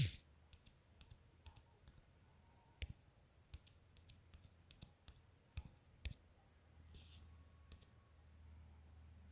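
Faint, irregular clicks of taps on a smartphone's touchscreen keyboard during typing, a couple of them louder than the rest. A faint low hum comes in about two-thirds of the way through.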